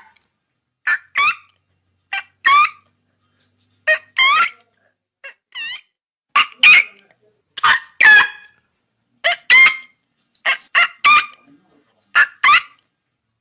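Pelican calling: short, pitched cries, mostly in quick pairs, repeating about every one and a half seconds.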